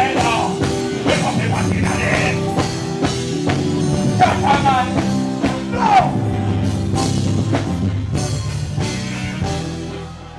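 Live band music with drums and electric guitar, playing loud and dying down near the end.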